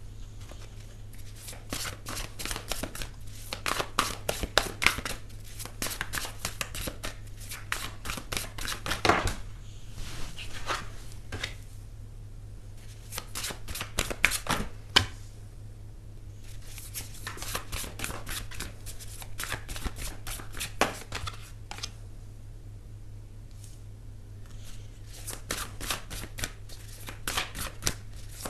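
A deck of tarot cards being shuffled by hand: several bursts of rapid crackling clicks, each a few seconds long, with short pauses between them.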